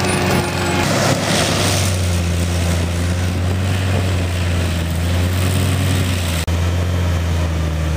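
Tracked forestry mulcher working under load: its engine drones steadily with a strong low hum while the rotor head grinds through brush, stumps and soil.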